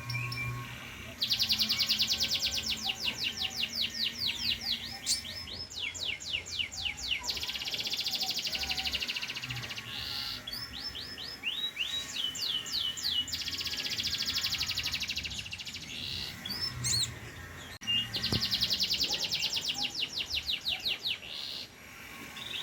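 A pied ("panda") domestic canary in full song. It sings long rolls of very rapid repeated notes, phrase after phrase, each lasting a few seconds. Short falling whistles come between the rolls.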